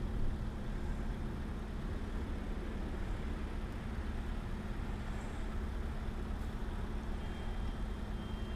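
Steady low engine rumble with a constant low hum, typical of a vehicle idling close to the phone's microphone.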